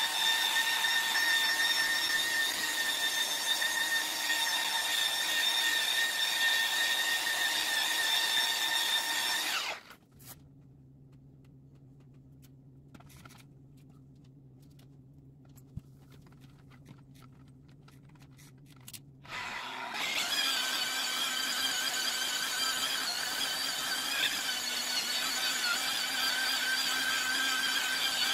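Electric rotary polisher running with a steady whine as it buffs a plexiglass panel, then switched off about ten seconds in, leaving a faint low hum and a few small clicks. Some ten seconds later it starts up again and runs on with its pitch wavering slightly as the pad works the sheet.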